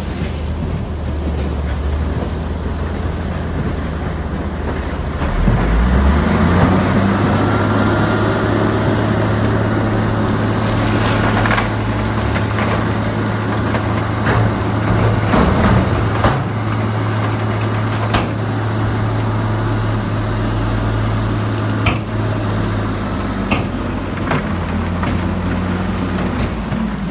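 Heavy diesel engine of a Shantui bulldozer running steadily, revving up about five seconds in and settling back down near the end, with sharp metallic clanks now and then.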